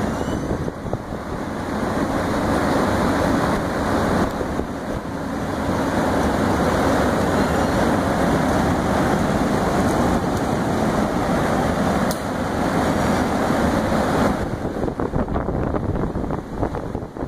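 Alugen 6K-I ST portable evaporative air cooler's fan blowing a steady rush of air, with the airflow buffeting the microphone more unevenly near the end.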